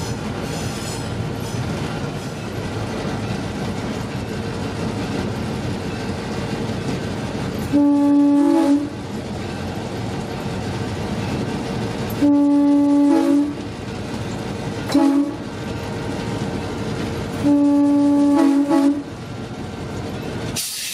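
EMD GP9 diesel locomotive sounding its air horn in the grade-crossing pattern of long, long, short, long, heard from inside the cab. Each blast steps slightly up in pitch just before it ends. Under the horn the locomotive's diesel runs steadily with rail noise as it approaches the crossing.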